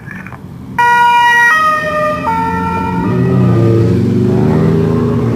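Two-tone siren of a race escort vehicle sounding suddenly about a second in, alternating between a lower and a higher note a few times, followed by a motor vehicle engine passing close with its pitch rising.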